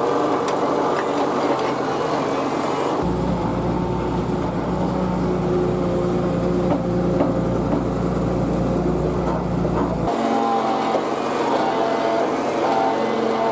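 Tata Hitachi EX200 LC excavator's diesel engine running steadily under work. A deeper low rumble comes in about three seconds in and drops out abruptly near ten seconds.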